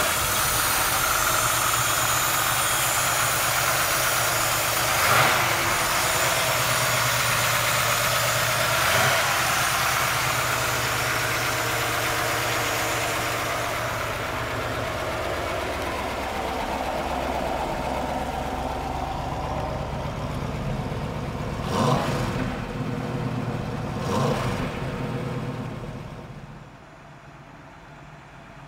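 The fuel-injected 383 V8 of a 1972 Chevrolet Nova idling steadily, swelling briefly four times. Near the end the engine is heard farther off and much quieter.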